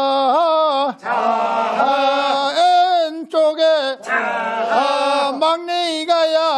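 Unaccompanied men's voices chanting a Korean fishermen's boat-launching work song from Goseong, the rhythmic calls sung while the crew push the pollack boat down to the sea. The phrases last about a second each, with short breaks between them.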